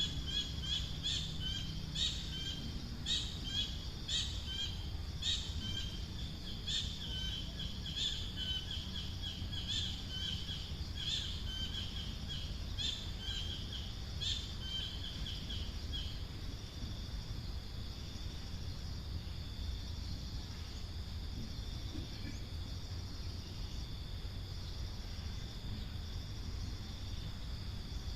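Outdoor natural ambience: short high chirps repeat about twice a second for the first half, then stop. Under them a steady, high insect drone runs on throughout, with a low rumble.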